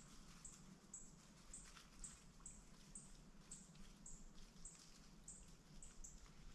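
Faint, high, short chirps repeating steadily about twice a second from a small chirping animal, over a low steady hum.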